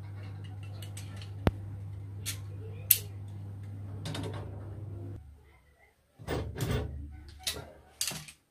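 Handwork on copper heating pipes overhead while ball valves are fitted to the cut pipe ends: sharp clicks over a steady low hum that stops about five seconds in, then a few louder metallic scrapes and knocks near the end.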